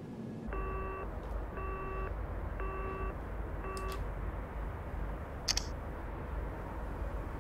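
Telephone busy tone: four short beeps about a second apart, the sign that the other party has hung up. About five and a half seconds in comes a short burst of noise, over a low steady hum.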